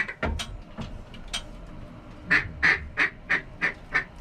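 Duck call blown in a series of about six quacks, each a little softer than the one before, calling to ducks flying overhead.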